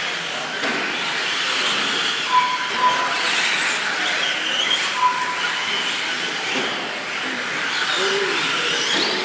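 RC 4x4 short-course trucks racing, their motors whining and rising and falling in pitch as they speed up and slow down. Three short beeps sound a little over two seconds in, about three seconds in and about five seconds in.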